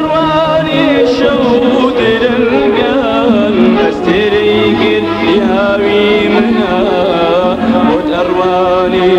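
Middle Eastern-style ensemble music playing an instrumental passage, with a wavering, ornamented melody over a steady accompaniment.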